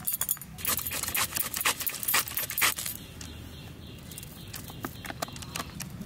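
Cabbage being shredded finely on a bonti blade: a quick run of crisp crunching cuts for about two seconds, then a few softer cuts.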